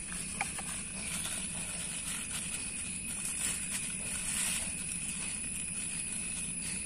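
Soft scraping and crinkling of a plastic bag as raw chicken is cut into small bait pieces with a box-cutter blade. Under it runs a steady high-pitched background drone.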